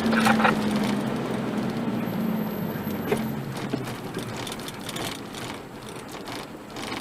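Engine and road noise inside a moving vehicle, picked up by a dashcam microphone. A steady hum fades out over the first few seconds, and the whole sound grows quieter toward the end, with a few faint knocks.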